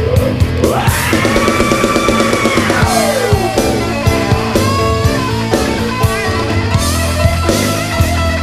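Rock music with no vocals: drum kit and guitar, with a lead line that glides up early, holds, and slides back down a few seconds in.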